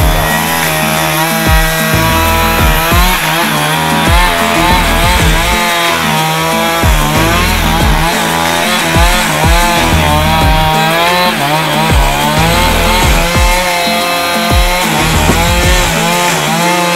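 Background music: a wavering melody over a stepping bass line and a steady beat, which cuts off suddenly at the end.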